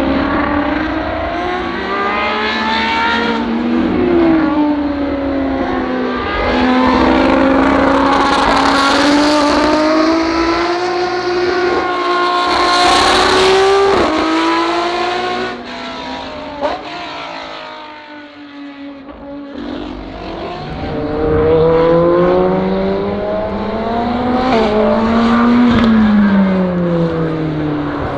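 Race-prepared supercars on track, among them a Lamborghini and a McLaren 720S GT3, driving through corners one after another: the engine note climbs and drops as they accelerate, shift and brake. There is a brief lull about two-thirds of the way through before another car comes in.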